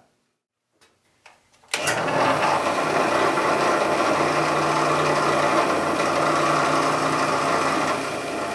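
Drill press motor starts about two seconds in and runs steadily with an even hum, drilling through a wooden 2x4.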